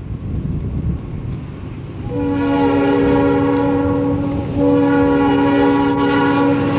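Diesel locomotive air horn sounding a long blast about two seconds in, breaking off briefly and starting again in a second long blast, over the low rumble of the approaching train.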